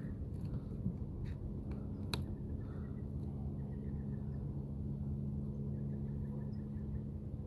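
A steady low mechanical hum made of several level tones, with a faint click about two seconds in.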